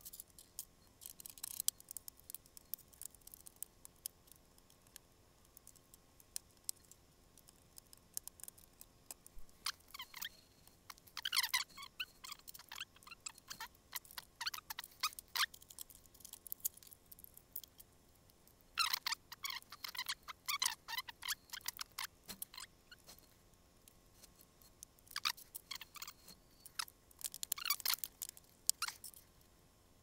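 Small plastic clicks, taps and crinkles from hands working on a laptop's underside: the bottom cover being pried off and clipped back on, and a RAM module being unpacked from its plastic packaging and fitted. The sounds come in three busier clusters, starting about ten, nineteen and twenty-five seconds in, with sparse scattered clicks between.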